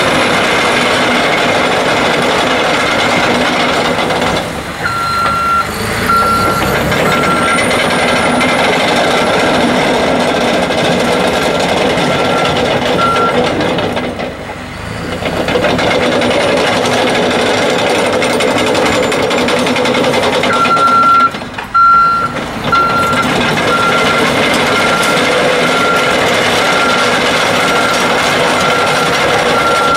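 Cat D6T LGP crawler dozer running under way, its C9.3 ACERT diesel engine steady throughout. Its reversing alarm beeps at an even pace about five seconds in, stops near the middle, and starts again about two-thirds of the way through as the machine backs up.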